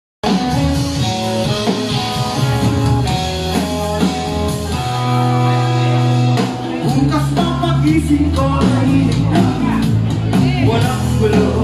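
Live rock band playing: a male singer over electric guitars, bass and drums.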